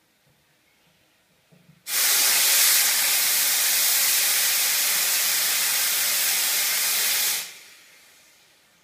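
Steam wand of a La Scala Carmen commercial espresso machine opened after about two seconds, giving a steady loud hiss of steam for about five and a half seconds before it is shut and dies away.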